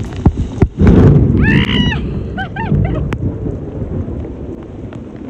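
Heavy rain pouring down on a flat rooftop and onto the microphone, with a loud rumble about a second in. Just after it a woman squeals and then laughs in short bursts.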